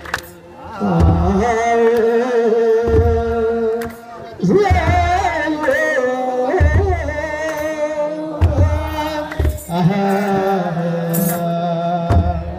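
Voices singing an Ethiopian Orthodox wereb hymn together, over slow strokes of a kebero, the large hand-beaten church drum.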